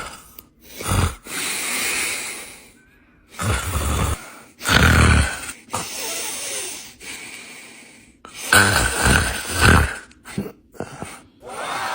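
A person snoring: a run of snores a second or two apart, some rumbling low and some mostly hissing breath.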